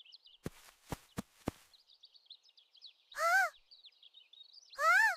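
Bird sounds: two loud, harsh caw-like calls about a second and a half apart in the second half, over faint continuous high twittering of small birds. Four sharp clicks come near the start.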